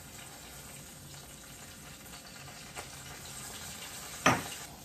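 Soy sauce sizzling as it is poured into hot olive oil with ginger and garlic in a stainless steel skillet: a steady hiss that slowly grows louder. Near the end a sharp knock, the loudest sound, as the glass cruet is set down.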